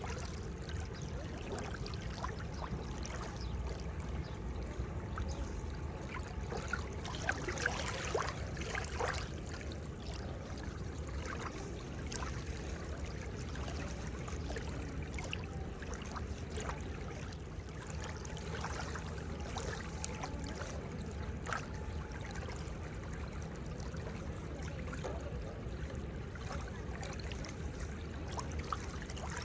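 Seawater lapping and trickling at the shoreline: a steady wash of water with many small splashes and gurgles, a little louder about seven to nine seconds in.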